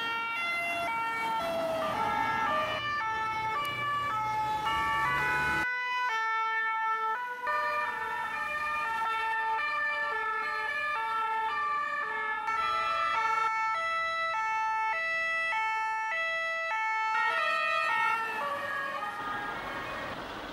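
French two-tone emergency-vehicle sirens, more than one sounding at once, each switching between a high and a low note about every half second. The sound changes abruptly about six seconds in and eases off near the end.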